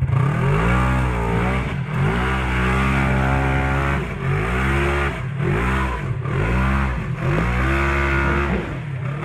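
Side-by-side UTV engine revving in repeated surges, its pitch rising and falling about once a second as the throttle is worked to claw up a steep wooded slope.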